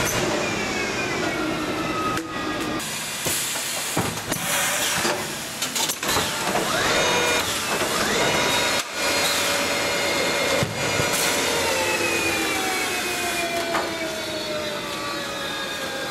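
Automatic film roll winder running: a steady mechanical rush with motor whines that fall in pitch several times, and a few sharp knocks from the machinery.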